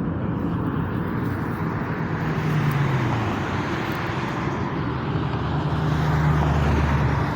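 Loud, steady roaring rush from overhead, like a giant blowtorch in the sky, from an unseen source. A low hum under it grows stronger in the last few seconds.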